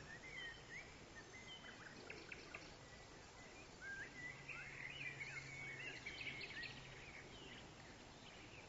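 Faint woodland birdsong: several small birds singing and calling in short, overlapping chirps and warbles over a low outdoor hiss. A faint steady low hum runs underneath for a few seconds in the middle.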